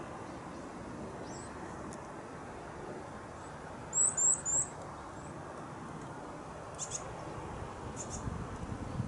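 Three quick high bird chirps in a row about four seconds in, over a steady outdoor rushing noise from the churning sea and air.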